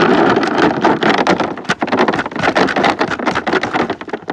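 Wormer feed pellets pouring out in a loud, dense rattling rush of many small clicks, thinning out near the end.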